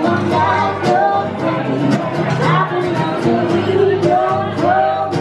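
Live acoustic music: two acoustic guitars strummed, with a singer's voice over them.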